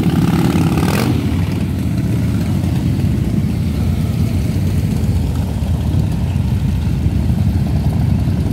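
A group of cruiser motorcycle engines running together at low revs, a steady low rumble, with a brief sharp noise about a second in.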